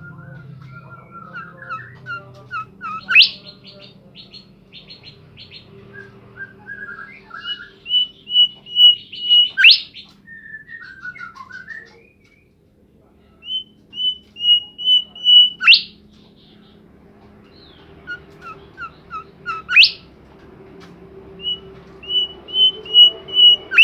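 A songbird singing in full voice. It repeats a phrase of quick whistled notes that grow louder and end in a sharp rising whip, about every four to six seconds, with softer chattering notes in between.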